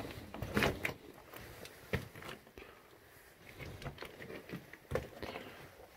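Footsteps and scuffs on loose rock and debris, coming irregularly as short crunches and knocks, with a few sharper ones.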